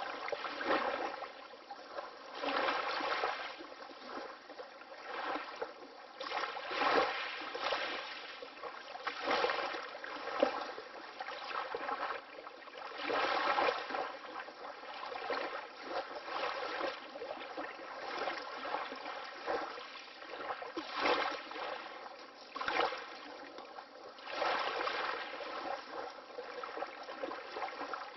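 Water lapping in small waves: a continuous wash with soft, irregular splashes every couple of seconds.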